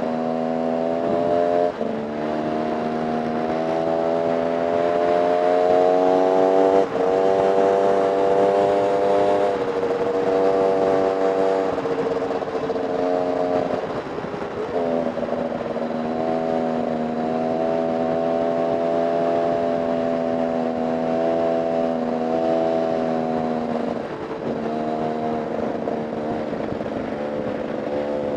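Off-road motorcycle engine running hard through an enduro trail section. Its note climbs and then drops sharply four times, about 2, 7, 14 and 24 seconds in, as the throttle or gear changes.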